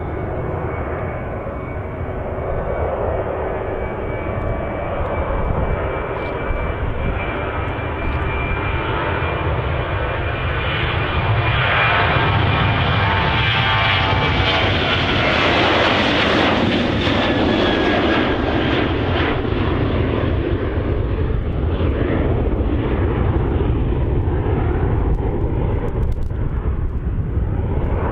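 Boeing 737-800's twin CFM56-7 turbofan engines at take-off thrust. They get louder about ten seconds in as the jet accelerates past, with a high whine sliding down in pitch as it goes by, then run on steadily and loud as it climbs out.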